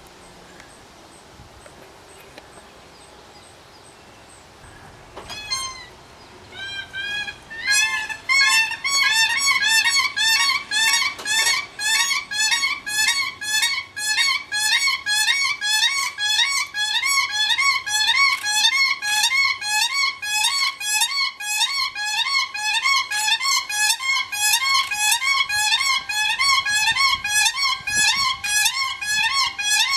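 A pair of Siberian cranes giving their unison call: high, flute-like notes. A few single calls come about five seconds in, then a loud, steady run of repeated notes, about two or three a second, from about eight seconds on.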